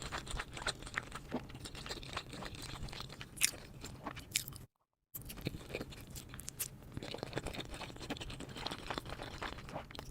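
A person chewing and crunching crisp food close to the microphone, with many sharp crackles. The sound drops out completely for about half a second midway, then the chewing resumes.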